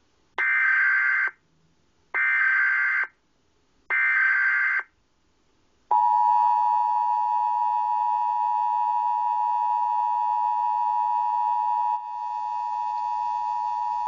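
Emergency Alert System broadcast tones played from a TV: three short bursts of the SAME digital header, which carries the alert's coded data, about a second apart. Then, from about six seconds in, the EAS two-tone attention signal (853 and 960 Hz sounded together) holds steady to the end.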